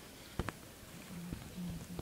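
Footsteps and a few sharp knocks on a hard floor over a faint hubbub, with the two loudest clicks about half a second in.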